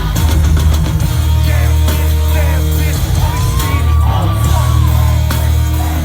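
Loud live concert music over festival speakers: a heavy, sustained bass with voices shouting and singing above it.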